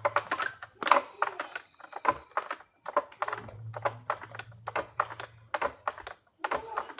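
A run of irregular clicks and taps, a few a second, with a low hum coming and going underneath.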